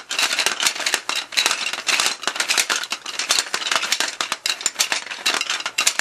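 Hungry Hungry Hippos game being played: the plastic hippos' levers are slapped down over and over, their jaws clacking and the marbles rattling on the plastic board, a fast, irregular clatter of many clicks a second.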